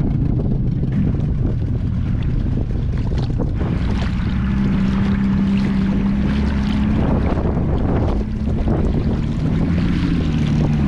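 A boat's engine running under way, its hum stepping up in pitch about four seconds in and shifting again near the end, with wind buffeting the microphone.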